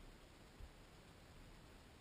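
Near silence: a faint steady hiss, with one soft low thump a little over half a second in.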